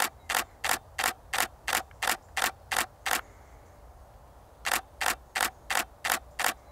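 Canon 80D DSLR shutter firing in continuous bursts, about three shots a second: a run of about ten shots, a pause of a second and a half, then another run of about seven.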